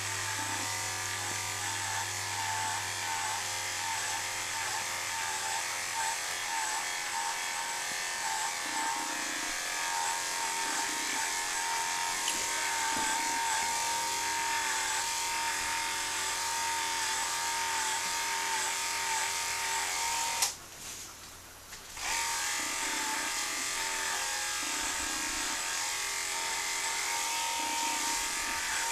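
Electric pet grooming clippers running with a steady high whine, the pitch wavering slightly as the blade works through a cocker spaniel's coat. They switch off for about a second and a half a little past two-thirds of the way in, then run again until just before the end.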